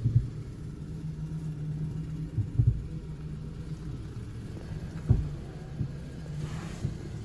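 A steady low rumble, with brief dull thumps about two and a half and five seconds in.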